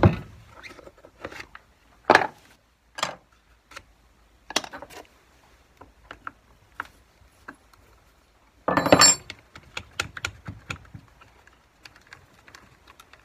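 Hand tools and chainsaw parts being handled: scattered light clicks and metallic clinks as a nut driver works on the Stihl MS390's top cover and air filter. A louder clatter about half a second long comes around nine seconds in.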